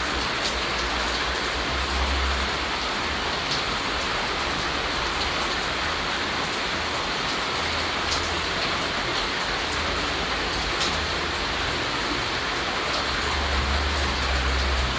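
Steady rain falling, a dense even hiss with scattered individual drops ticking through it. A low rumble swells twice, about two seconds in and again near the end.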